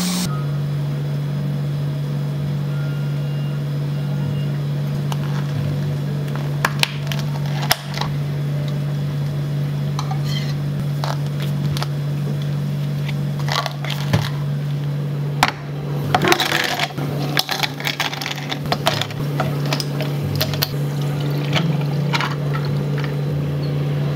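A cafe machine's steady low hum, with scattered clinks and clatters of utensils and containers while food is prepared at the counter; the clattering comes thickest a little past the middle.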